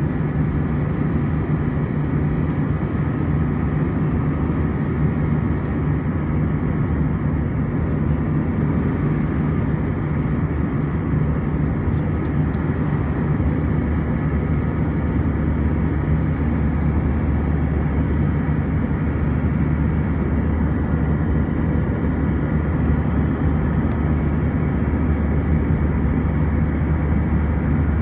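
Cabin noise of an Airbus A320-200 climbing after takeoff, heard from a window seat over the wing: a steady jet-engine drone with a low hum under the rush of air.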